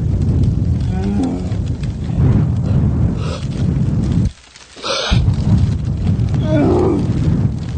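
Staged recreation of a grizzly bear attack: a heavy, low rumbling noise over the microphone, with wavering vocal cries about a second in and again near the end. The rumble cuts out abruptly just past four seconds, with a short hiss before it returns.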